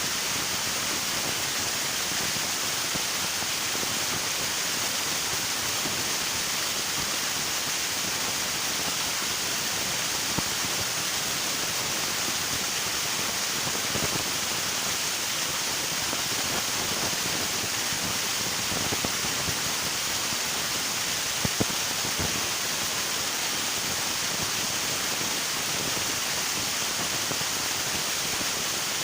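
River water rushing in a steady, unbroken hiss, with a few faint splashes or clicks now and then.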